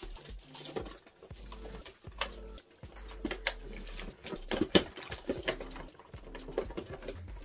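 Irregular rustling and light clicks of packaging as the next product is dug out of a cardboard subscription box.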